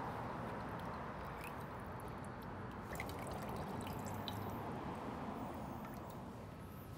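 Faint liquid trickling and dripping: brine running off flank steak as it is lifted out of a plastic brine container.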